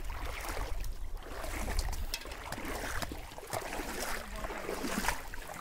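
Shallow floodwater sloshing and splashing as a person wades through it, with many small splashes and drips.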